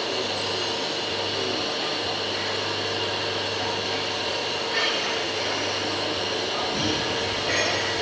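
24 V electric hydraulic pump of a crane truck running steadily with an even whine, as the boom is worked, with a couple of faint knocks later on.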